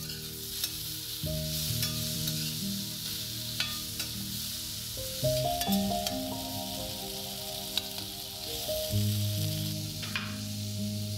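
Diced potatoes sizzling in hot oil in a stainless steel skillet, the sizzle starting suddenly as the lid comes off, with a spatula scraping and tapping against the pan as the potatoes are stirred.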